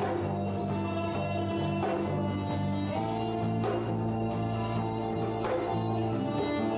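Live acoustic ensemble playing an instrumental passage: strummed acoustic guitar, bowed violin and bass guitar over a steady low bass line, with occasional djembe strokes.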